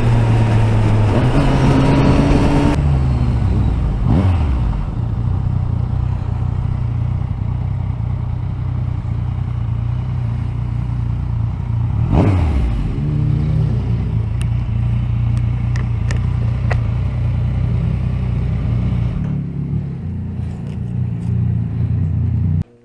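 Motorcycle engine slowing from road speed with wind rushing past the helmet camera, then idling at the fuel pump, with a brief rise and fall in revs about twelve seconds in. Near the end the engine is switched off and cuts out abruptly.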